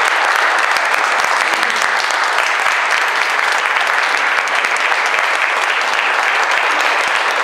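Audience applauding: many hands clapping in a steady, dense, unbroken round of applause.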